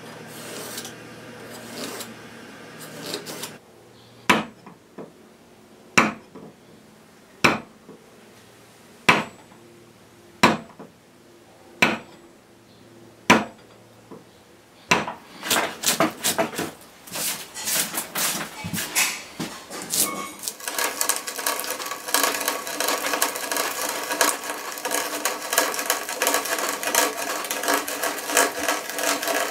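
A marking knife scrapes along wood, then a mallet strikes a chisel seven times, about a second and a half apart, chopping out a housing in softwood. Quicker light chisel taps follow, then an auger bit bores into the timber with a continuous rough, grinding clatter.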